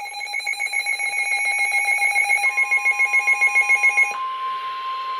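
Emergency Alert System attention tones playing from two channels at once. A rapidly beeping alert tone runs for about four seconds. About two and a half seconds in, a steady single alarm tone joins it and carries on alone once the beeping stops.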